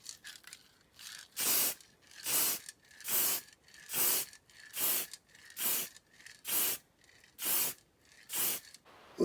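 Aerosol spray can hissing in about nine short bursts, roughly one a second, as paint is sprayed onto a small die-cast model car body.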